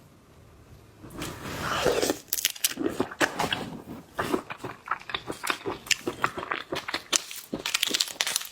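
Close-up mukbang eating of seafood: a drawn-in slurp about a second in, then a dense run of crunching, cracking and wet chewing as shells are bitten and meat is chewed.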